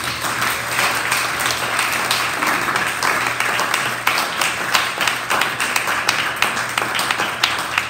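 A small seated audience applauding, many hands clapping together in a dense, steady patter.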